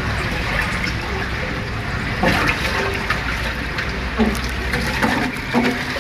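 Water rushing and splashing steadily along a water ride, with brief voices breaking in a few times in the second half.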